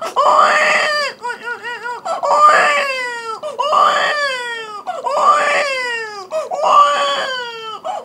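A man imitating wailing cries with his voice while pinching his nose: a string of loud wails, each falling in pitch, one about every second and a half, with a short warbling call between the first two.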